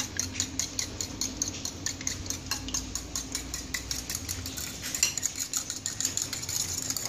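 Metal fork whisking beaten eggs in a ceramic bowl, its tines clicking rapidly and evenly against the bowl.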